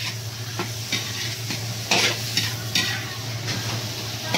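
Stir-frying squid pieces with squash, string beans and okra in a wok: a steady sizzle, with repeated scrapes and knocks of a metal ladle against the pan.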